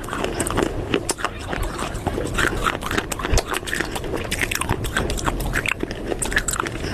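Close-up crunching and chewing of baked clay pot pieces: a dense, continuous run of sharp crunches and crackles.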